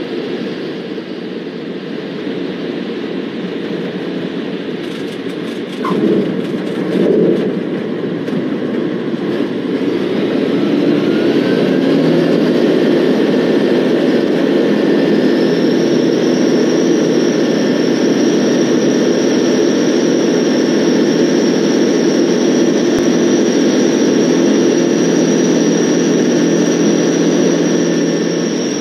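Van's RV-12's Rotax 912 flat-four engine and propeller heard from inside the cockpit, running at part power with two thumps a few seconds in. About ten seconds in the engine note rises as power comes up to full takeoff power, then holds steady and louder through the climb-out, with a thin high whine joining about halfway through.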